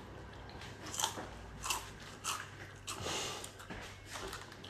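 A person chewing and biting food close to the microphone: a string of short, faint crunches and mouth clicks.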